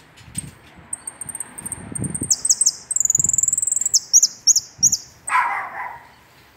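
Caged saffron finch (jilguero) singing: high, thin chirps, then about two seconds in a fast run of trilled notes sliding down in pitch, the loudest part. Near the end a brief, harsher noisy sound cuts in.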